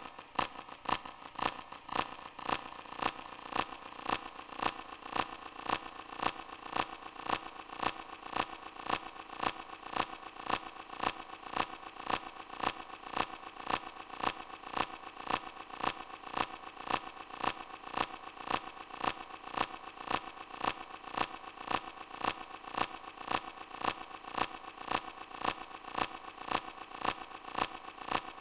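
Small motorized mechanism running steadily: a constant whir with a sharp click about twice a second.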